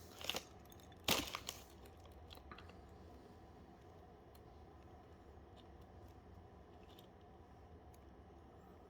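Handling noise of a network cable's small insulated wires rustling and crinkling between fingers as they are straightened into order: two short rustles in the first second and a half, the second louder, then only faint small ticks.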